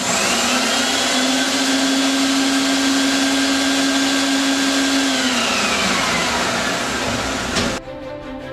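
Vacuum cleaner motor switched on, spinning up to a steady whine, then switched off about five seconds in and winding down with a falling pitch. Music comes in near the end.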